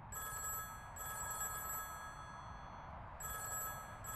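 Telephone ringing in a double-ring pattern: two short rings, a pause, then two more, over a low background rumble.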